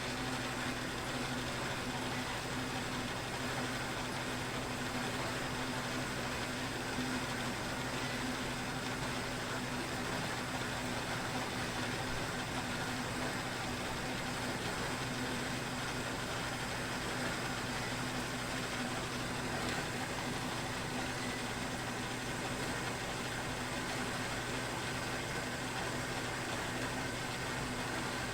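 Metal-cutting bandsaw running steadily with a constant hum, its blade cutting through flat steel stock.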